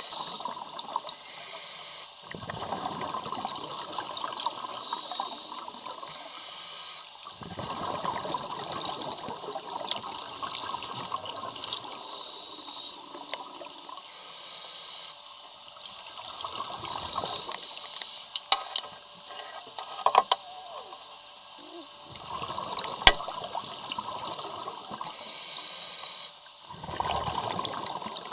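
Scuba regulator exhalations underwater: bubbles gurgling out in bursts a few seconds long, about every five seconds, with a few sharp knocks in the latter half.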